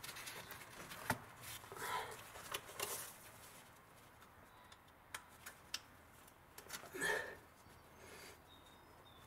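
Faint, scattered metallic clicks and taps of a ratchet and a drill bit against the belt tensioner as the bit is worked in as a locking pin to hold the tensioner back. Two short, louder sounds come in, about two and seven seconds in.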